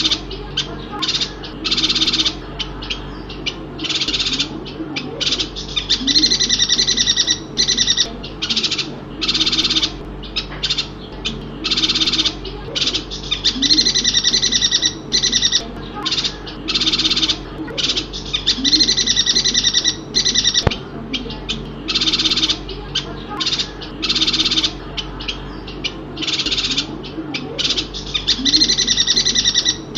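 Bornean (chestnut-crested) yuhina calling in rapid bursts of high, chattering twitters, each under a second to about a second and a half long, repeating with short gaps. A faint steady low hum runs underneath.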